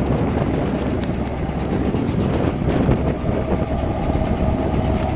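1959 Chrysler Windsor's 383 cubic-inch V8 idling steadily, heard at its dual tailpipes.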